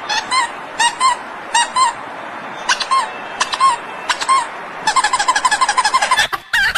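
Short high squeaks, mostly in pairs and spaced out at first, then a quick run of about nine squeaks near the end, just before a brief break.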